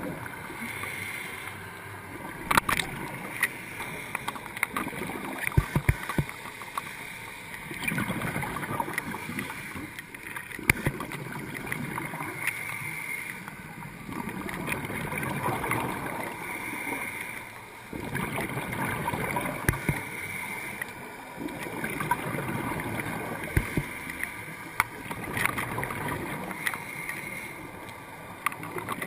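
Scuba regulator breathing heard underwater: rushing, gurgling bursts of exhaled bubbles swelling and fading about every four seconds, with a hiss on each inhale and scattered sharp clicks and knocks.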